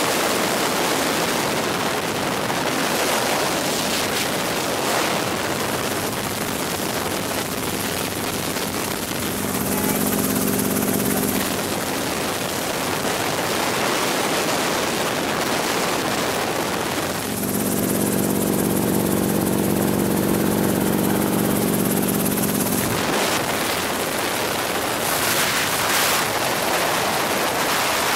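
Helicopter in flight, heard from on board: a steady noisy rush of rotor and engine. A droning hum of several steady tones comes through strongly twice, for a couple of seconds about ten seconds in and again for about six seconds from seventeen seconds in.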